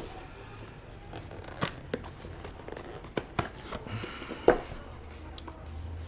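Cardboard box of a Parrot Flypad controller being opened by hand: the inner box slid out and its lid lifted, with rustling and a handful of sharp clicks and taps, the loudest about four and a half seconds in.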